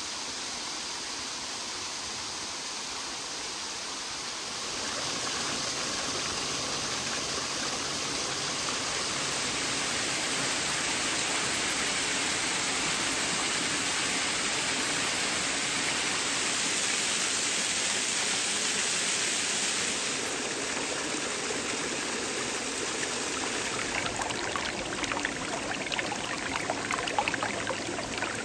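Water rushing down a rocky creek and spilling over a small waterfall, a steady rush that grows louder a few seconds in. In the last few seconds it turns to closer splashing and gurgling of water over rocks.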